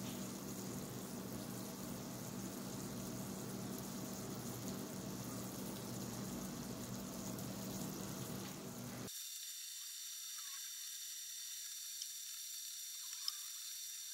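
Steady background hiss with a low hum and no distinct event; about nine seconds in it cuts abruptly to faint, steady high-pitched tones.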